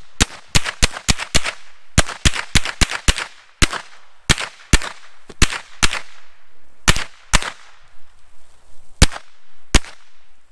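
Rapid gunfire, about twenty shots: two quick strings of five or six shots in the first three seconds, then shots coming more irregularly and spacing out to single shots near the end.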